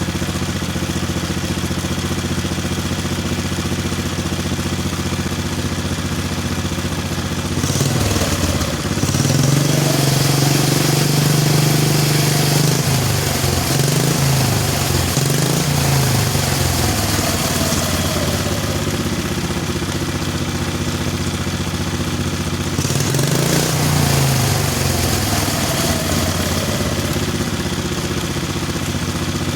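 Lawnmower engine of a home-built motorcycle idling steadily. It is revved up about a quarter of the way in and held there, the pitch wavering with the throttle, for about ten seconds before dropping back to idle. It is revved once more, briefly, near the end.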